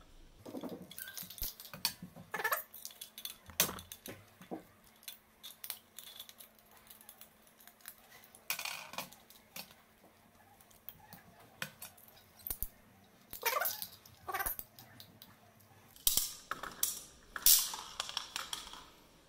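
Irregular clicks, metallic snaps and short rustles from hand tools working electrical wires: a ratchet crimping tool closing on insulated inline crimp connectors, then pliers and the wires being handled. A few louder scraping bursts stand out in the second half.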